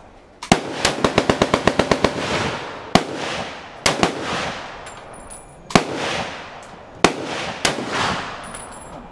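Gunfire at an outdoor range. A single shot is followed by a fast automatic burst of about a dozen rounds, then more single rifle shots spaced a second or so apart, each with a long echoing tail.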